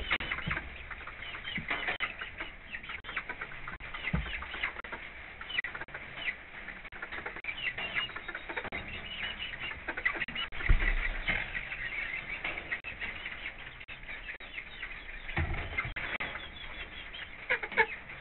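Chickens clucking and chirping softly and often, with a few dull thumps, the loudest about eleven seconds in.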